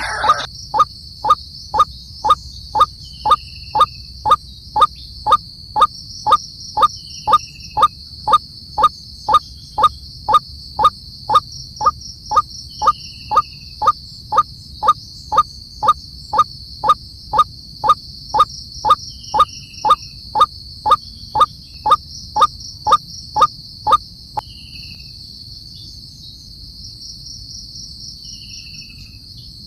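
A steady, high-pitched insect chorus of crickets, with a short, low 'tok' call repeated evenly about one and a half times a second that stops about 24 seconds in. Faint short downward chirps sound every few seconds.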